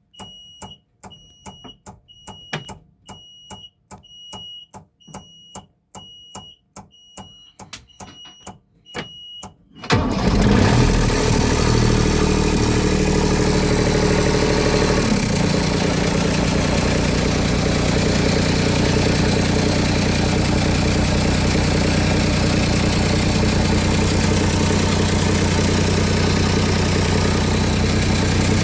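A high beep repeats about once a second, then about ten seconds in a vehicle engine starts and runs loudly. Its fast idle drops to a lower idle a few seconds later, and it is running with an exhaust leak.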